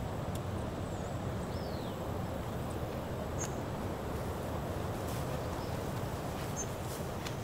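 Outdoor coastal ambience: a steady rushing background of wind or surf, with a few faint, short, high bird chirps coming and going.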